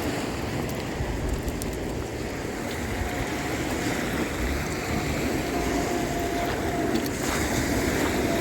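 Rough, choppy water with waves washing onto the beach, and wind rumbling steadily on the microphone.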